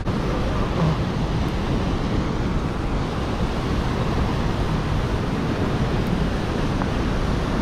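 Whitewater rushing through a narrow rock gorge: a steady, even rush of water.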